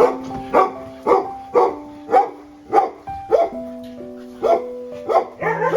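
A dog barking repeatedly, about two barks a second with a brief pause in the middle, over background music.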